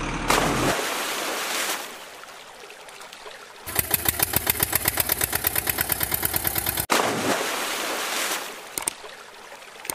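A toy dump truck splashing into water, then a rapid, evenly pulsing engine sound for about three seconds that goes with a toy tractor driving along. About seven seconds in, a second splash as the toy tractor and trailer plunge into the water.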